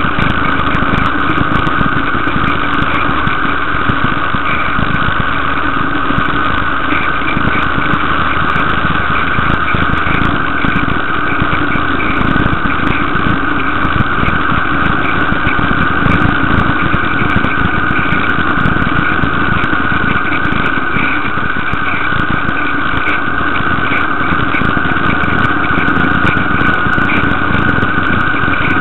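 Steady engine and road noise of a vehicle travelling at speed through a road tunnel, with a fluttering low rumble underneath and no change in pace.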